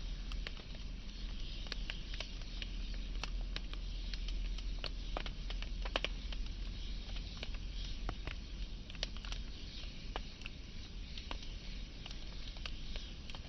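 Burning wood fire crackling: irregular sharp pops and snaps over a soft steady hiss, with a few louder pops about halfway through.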